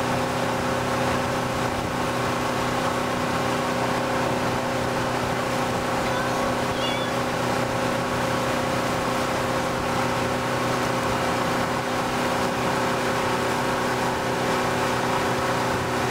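Motorboat engine running steadily at cruising speed, with the rush of the churning wake water over it.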